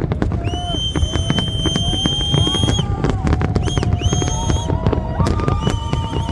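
Fireworks going off in a dense, rapid stream of cracks and bangs, with several long whistle-like tones sounding over them, starting and stopping at different pitches.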